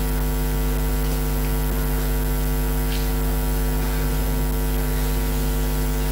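Steady electrical mains hum, low and buzzy, with no change in pitch or level.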